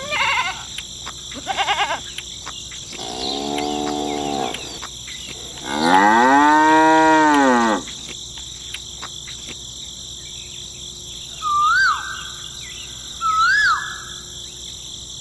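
Cattle mooing: two long moos, the second louder and arching up then down in pitch. Two short chirps follow near the end, over a steady high-pitched background tone.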